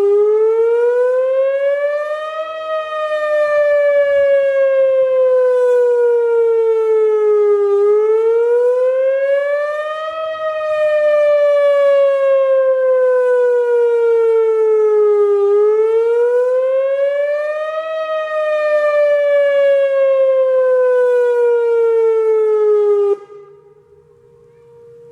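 Whelen OmniAlert OA-2 electronic outdoor warning siren sounding its wail during a weekly test: a loud tone that slowly rises and falls in pitch, three times, about one cycle every seven and a half seconds. Near the end it cuts off suddenly as the one-minute wail ends, leaving only a faint steady tone.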